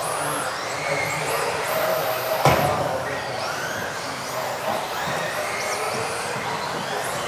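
Several electric RC off-road racing cars running at once, their motors whining in high pitches that rise and fall as they accelerate and brake, with one sharp knock about two and a half seconds in.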